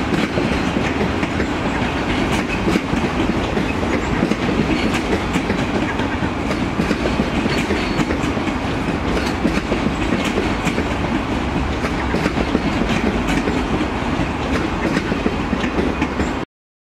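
RENFE Media Distancia electric multiple unit departing and rolling past, a steady rumble with its wheels clicking irregularly over rail joints and points. The sound cuts off suddenly near the end.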